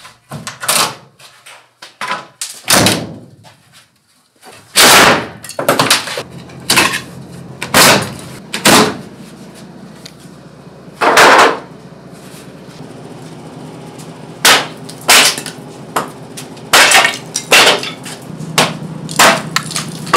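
Wood paneling and furring strips being torn off a concrete basement wall with a hammer: irregular loud knocks and cracks of wood breaking away, with boards clattering as they are dropped.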